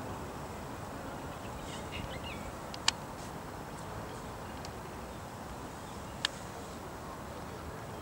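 A small songbird giving two single, hard clicking call notes about three seconds apart, with faint chirps about two seconds in, over a steady background hiss.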